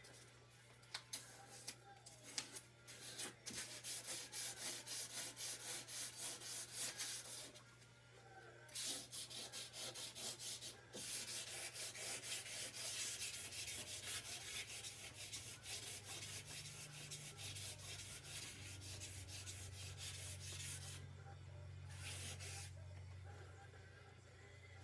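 Wet/dry sandpaper, about 400 grit, rubbed quickly back and forth by hand over a steel chainsaw guide bar with a little water to scour off rust. The strokes come several a second, pausing briefly about eight seconds in and again near the end.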